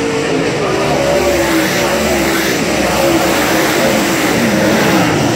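A pack of dirt late model race cars' V8 engines running hard, loud and continuous, with several engine notes rising and falling in pitch as the cars pass.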